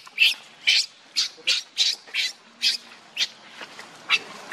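Baby macaque screaming in short, shrill, repeated cries, about two a second, with a brief pause near the end: distress calls while its mother pulls at it.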